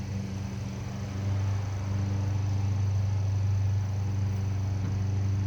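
Steady low hum with a faint high-pitched whine above it, unchanging throughout.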